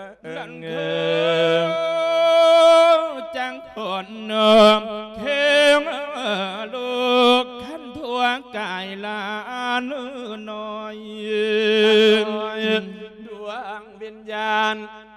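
Isan-style lae sermon: a monk's male voice chanting in a drawn-out, melodic way, with long wavering held notes and heavy vibrato in phrases broken by short pauses.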